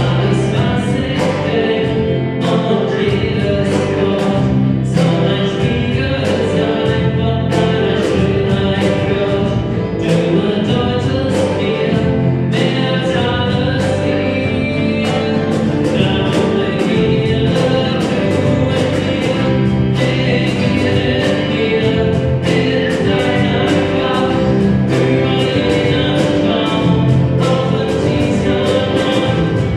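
A live church band playing a song: a singer over electric guitar and bass guitar, with a steady beat.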